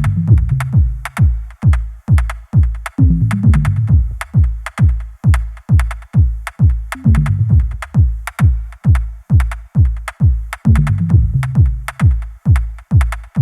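Electronic background music with a steady drum-machine beat: deep kick drums about twice a second, hi-hats and a bass line.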